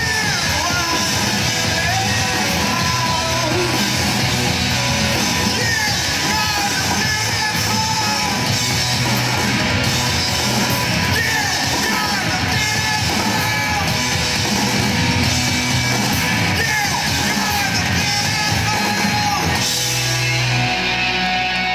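Indie rock band playing live and loud: electric guitars, bass guitar and a drum kit. Near the end the drums stop and a held chord rings on.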